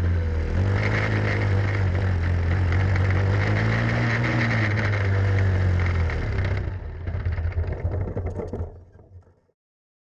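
Grass kart engine running at racing speed, heard from the kart itself, its pitch rising and falling. About six and a half seconds in the sound thins, and it fades out near the end.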